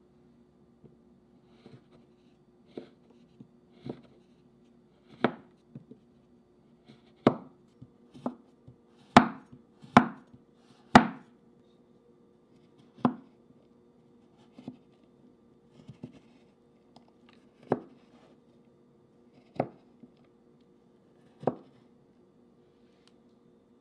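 Kitchen knife chopping a milk chocolate bar on a wooden cutting board: separate crisp knocks of the blade striking the board, one every second or two, loudest near the middle.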